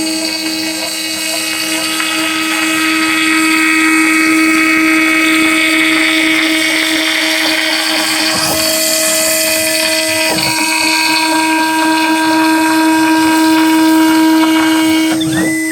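Homemade CNC router's spindle running steadily with a high whine while a 5 mm wood end mill works the wood. Fainter machine tones shift pitch briefly about 8 and 10 seconds in and again near the end.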